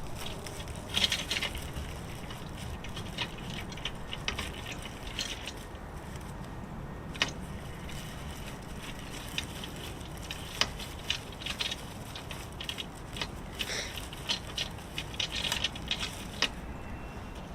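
Dry nesting material (coconut fiber, moss and twigs) crackling and rustling as it is stuffed by hand into a wire suet cage. The crackles come in irregular clusters, busiest about a second in and again in the last few seconds.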